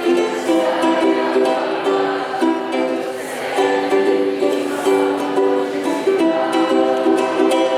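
Ukulele strummed, playing the chords of a song.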